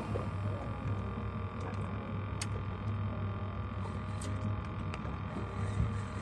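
Boat engine idling with a low, steady drone, with a few faint clicks over it.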